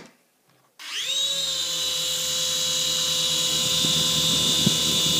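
Electric motors of a toy coaxial RC helicopter spinning up about a second in, then running with a steady high-pitched whine over the whir of the rotors.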